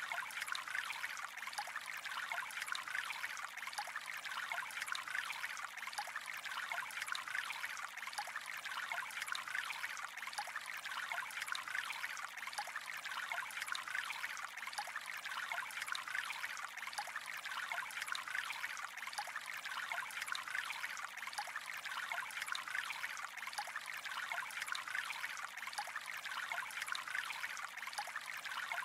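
Gentle flowing water trickling and splashing lightly, a steady, unchanging flow.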